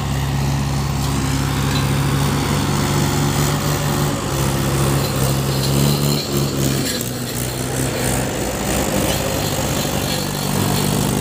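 Mahindra 575 tractor diesel engines running as the tractors drive by close, the nearest one loud and steady, its pitch shifting slightly about seven seconds in.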